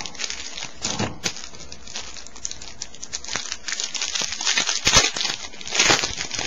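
A trading-card pack wrapper crinkling and crackling as it is torn open by hand, in quick irregular bursts that are loudest about five and six seconds in.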